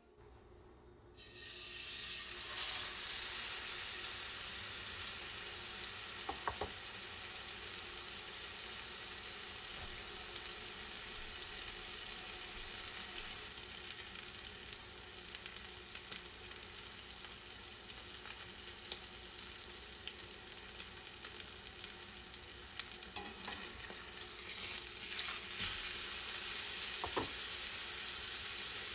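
Beef steak searing in hot oil in a cast-iron skillet: a steady sizzle that starts suddenly about a second in as the steak is laid in the pan, and grows louder near the end after the steak has been turned over.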